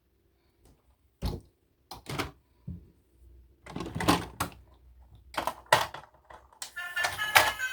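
Irregular clicks and knocks of plastic toys and packaging being handled. Near the end a toy's electronic tune with several steady tones starts up.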